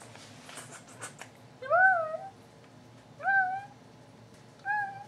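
Domestic tabby cat meowing three times, about a second and a half apart, each call rising then falling in pitch; the first is the loudest and each is shorter than the one before. A few faint clicks and rustles come before the first meow.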